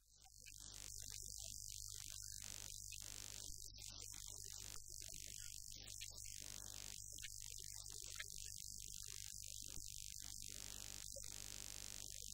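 Faint steady high hiss with a low electrical hum beneath it, fading in over the first second: recording noise and room tone.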